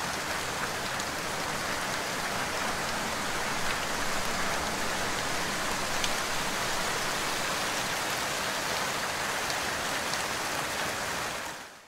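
Steady rain falling: an even hiss with scattered faint drop ticks, fading out at the very end.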